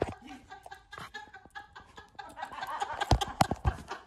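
Handling noise on a phone's microphone: knocks, clicks and rubbing as a dog picks the recording phone up in its mouth and carries it, with a few heavier thumps about three seconds in. People laugh softly under it.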